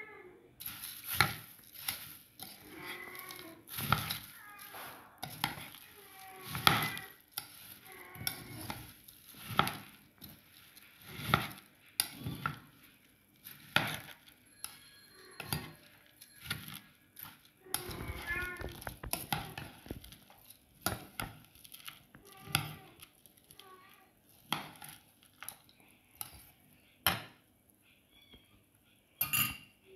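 Spoon stirring and tossing a jhal muri mix of puffed rice, chanachur and shredded chicken in a bowl: repeated scraping, rustling strokes with clinks of the spoon against the bowl, about one every second or two.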